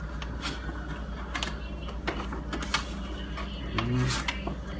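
Kitchen knife slicing a raw sweet potato into fry strips, the blade knocking on the cutting board in a series of irregular sharp taps, roughly a dozen.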